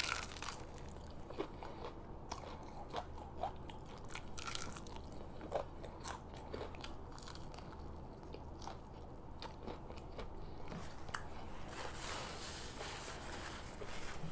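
Close-up chewing of crunchy fast food: an irregular run of small, crisp crunches and bites.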